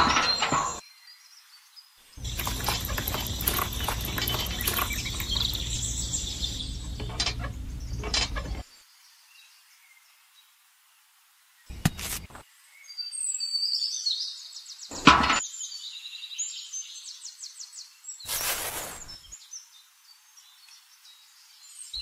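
Small electric motor of a miniature cement mixer running steadily for about six seconds, then cutting off abruptly. It is followed by scattered light knocks, one sharp knock, and faint bird chirps.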